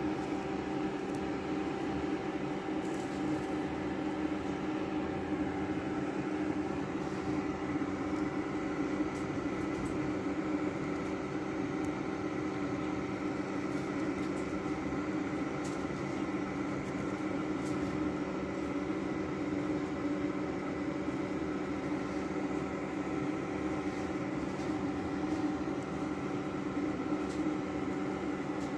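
Steady mechanical hum with several constant tones, unchanging throughout, with a few faint clicks.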